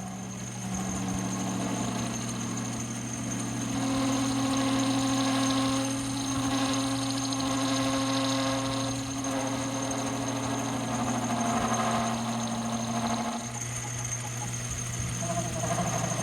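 Metal lathe turning a round bar while a grooving tool plunges in to cut a groove, in a couple of passes. A steady motor hum runs under a cutting tone that changes pitch about four seconds in and fades out a little past thirteen seconds.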